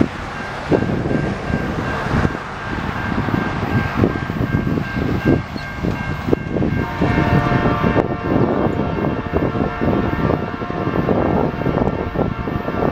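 Freight train led by two CN diesel locomotives approaching on a curve: engine rumble and wheel-on-rail knocks, with a steady high-pitched whine that thickens into several tones about seven seconds in.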